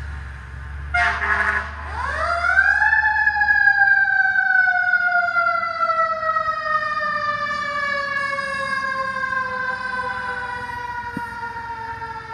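Fire truck siren passing close by. About a second in there is a short loud blast, then the siren winds up steeply and falls in a long, slow downward glide. The truck's engine rumbles under the start.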